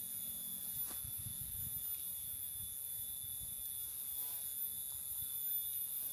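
Quiet outdoor ambience beside an empty railway line: a steady high-pitched whine over a faint low rumble, with no train passing.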